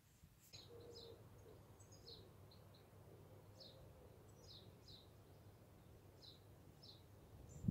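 Near silence: faint birds chirping in the background, a series of short high chirps, over a low steady room hum, with a brief bump near the end.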